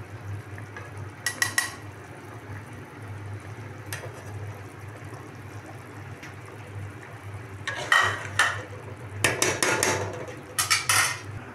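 A metal spoon scraping and clinking against a metal cooking pot as chicken yakhni broth is stirred, in a few short bursts about a second in and again near the end, over a steady low hum.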